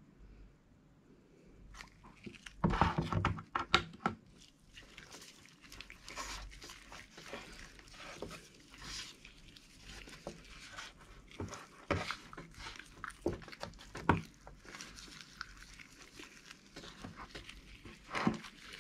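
Gloved hands rubbing barbecue sauce and seasoning into a whole raw duck: wet squishing and crackling of the gloves, with irregular small taps and knocks and a louder burst of handling about three seconds in.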